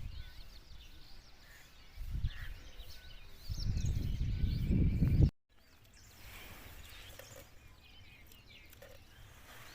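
Birds chirping in the background, with two bursts of low rumble on the microphone, the second and louder one breaking off abruptly just past the halfway point.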